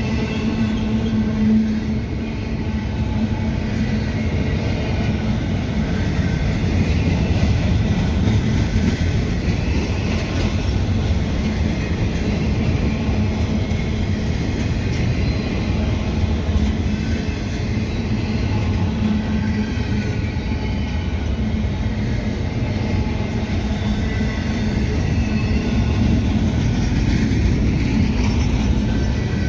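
Train rolling past on the tracks: a steady rumble of wheels on rail.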